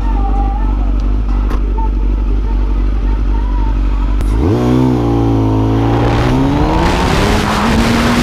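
A Kawasaki ZX-10R's inline-four engine idles with a steady low hum. About four seconds in, the bike pulls away and the engine note rises through the revs, dips at a gear change, then climbs again. Wind noise on the microphone builds near the end as speed picks up.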